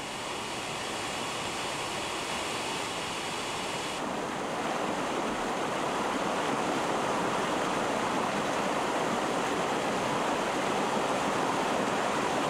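Waterfall in a mountain stream: water rushing steadily over rock into a pool. It turns slightly louder about four seconds in.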